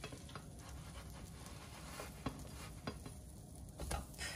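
Pancake batter frying faintly in a nonstick pan, with a few light clicks of a spatula against the pan.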